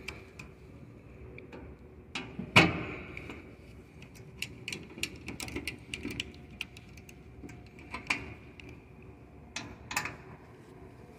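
Folding hex key turning and tightening a screw in a Yale pallet truck's steel side cover: a run of small metallic clicks and ticks, with a sharp knock about two and a half seconds in and a few more knocks near the end.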